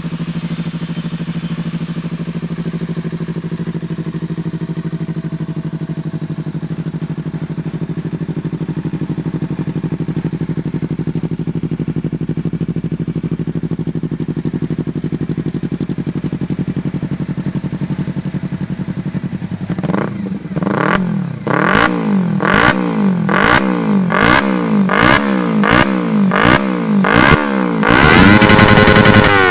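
Kawasaki Z300 parallel-twin with an aftermarket carbon-fibre exhaust idling steadily. About twenty seconds in, it is revved in a quick series of short throttle blips, roughly one or two a second, then held at higher revs for a moment near the end.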